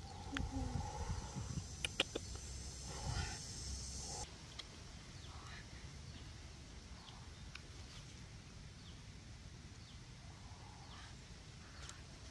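Faint forest ambience with scattered short bird chirps. A high steady buzz cuts off suddenly about four seconds in, and a few sharp clicks come in the first few seconds.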